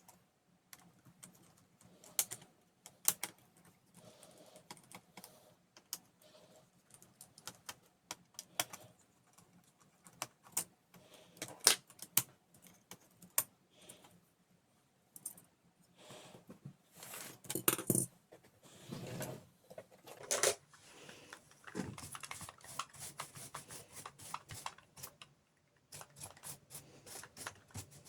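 Irregular small clicks and taps of a screwdriver and small metal parts as a laptop's cooling heatsink is unscrewed and lifted out, with a few louder handling rattles about two-thirds of the way through and quick runs of ticks near the end.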